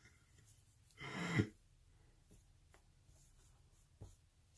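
Quiet handling of silk-screened cloth drawstring bags: a few faint soft ticks and rustles, with a brief murmured vocal sound about a second in.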